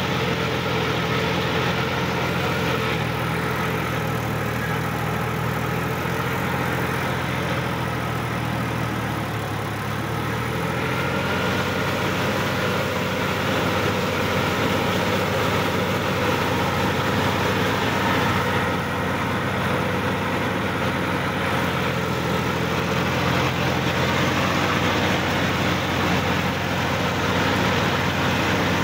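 Sonalika DI-50 RX tractor's diesel engine running steadily while under way, heard from the driver's seat. The engine note sags a little about ten seconds in and then picks up again.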